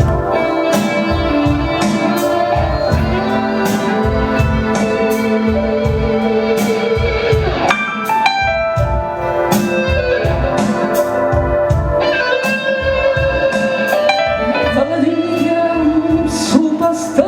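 A live band plays an instrumental intro: sustained electronic keyboard chords over a steady beat with ticking high percussion.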